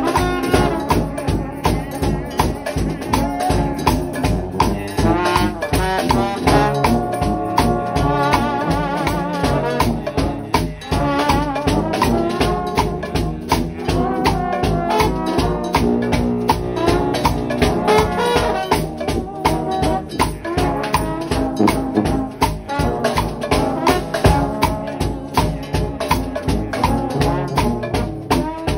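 Trombone shout band playing gospel music: several trombones carry the melody over a drum kit keeping a steady beat.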